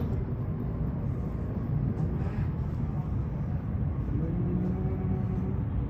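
Steady low rumble of an aircraft in flight, heard from inside the cabin.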